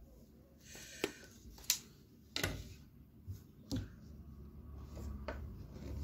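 About five light knocks and some faint rubbing as a wooden tailor's square is shifted and set down on the cloth-covered cutting table and tailor's chalk is drawn along the fabric.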